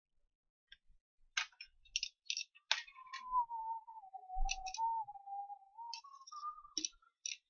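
Scattered light, sharp clicks at a microsoldering bench, with a single wavering tone running for about four seconds in the middle that dips lower and then rises again.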